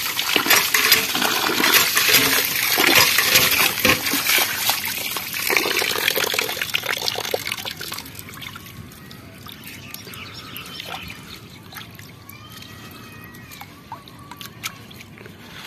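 Water sloshing and trickling as rice is washed by hand in a pot. It is louder for the first half and quieter after about eight seconds.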